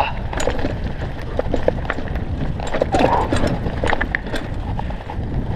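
Mountain bike clattering over a rough, stony dirt track on a fast downhill, with a steady low rumble of wind on the microphone under irregular clicks and knocks from the bike and tyres hitting stones.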